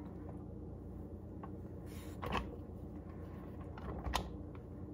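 Light handling of cooked lasagna noodles being lifted and laid into a glass baking dish: a few soft taps and clicks, the clearest about two seconds in and near the end, over a faint steady hum.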